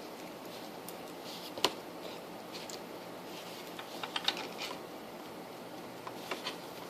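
Small clicks and scrapes of a plug being worked into the tight output terminals of a Korad KA3005P bench power supply, with one sharp click about a second and a half in and a quick run of clicks near the middle.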